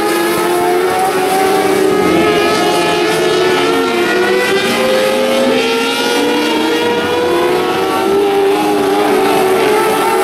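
Several 600cc micro sprint cars racing, their motorcycle engines revving up and down with a number of engine notes overlapping.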